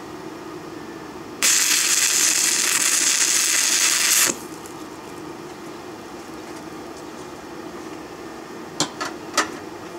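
Stick welding with 6013 rod at 90 amps from an inverter arc welder: the arc strikes about a second and a half in, crackles steadily for about three seconds while laying a tack weld, then cuts off suddenly. Three sharp clicks near the end, over a steady low hum.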